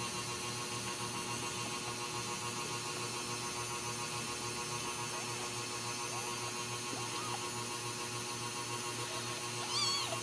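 Steady electrical hum throughout. Over it come faint, high squeaks from newborn Ragdoll kittens around the middle, and one short, louder kitten mew near the end.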